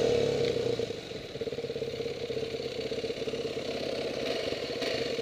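Yamaha dirt bike engine coming off the throttle and settling into a steady idle, its level dropping about a second in.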